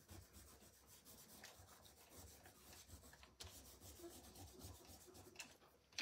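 Faint rubbing of a cloth over embossed cardstock, working Distress Crayon colour into the paper.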